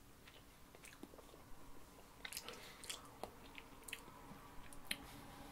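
Faint chewing: a person's mouth working on a very chewy candy, with scattered soft wet clicks.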